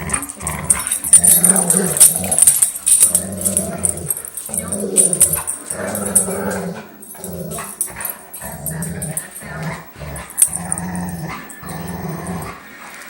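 Dogs growling in play while tussling over a plastic ring: a string of low growls, each under a second or so, broken by short pauses.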